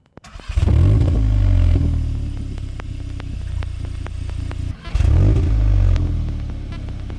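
Cupra Formentor VZ's stock 2.0-litre turbocharged four-cylinder exhaust flaring loudly in revs about half a second in, settling to a steadier idle, then flaring again just before five seconds in and easing back.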